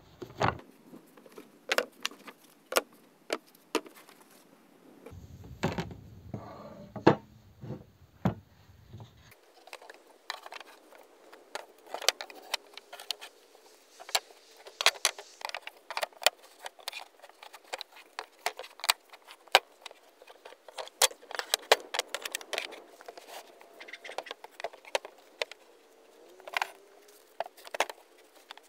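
Wooden pallet boards knocking and clattering as they are handled, set down and slid against one another and a wooden cable-reel disc, in many sharp, irregular knocks and clicks.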